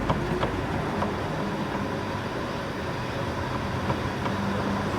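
Steady rumble of road traffic, with a few light clicks of metal parts being handled as a car's lower control arm is worked back into place.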